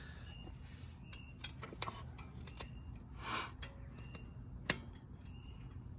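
Faint, scattered small metallic clicks and ticks as the pad retaining clips are worked out of a brake caliper, with a short rustle a little over three seconds in and one sharper click later.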